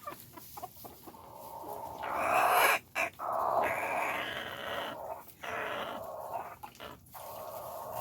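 Backyard chickens clucking. A louder, noisy stretch begins about two seconds in and trails on through the rest.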